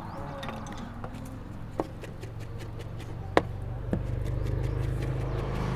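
Kitchen knife mincing garlic on a cutting board: many quick light taps of the blade, with a few sharper knocks, the loudest about three and a half seconds in. A low steady hum comes up about two seconds in.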